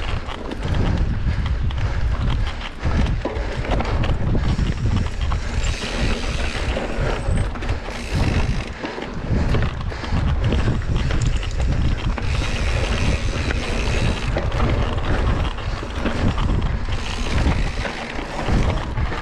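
Wind buffeting the microphone: a heavy, uneven low rumble with hiss over it, which drops away briefly about nine seconds in.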